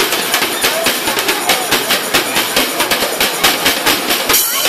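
Street band percussion playing a fast, driving samba beat on a marching snare drum, about five to six hits a second, while the horns rest.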